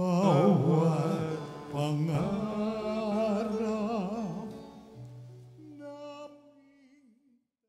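Slow church offertory hymn in Filipino, singing voices with vibrato over sustained instrumental accompaniment, on its closing phrase. The last chord and sung note fade out about seven seconds in.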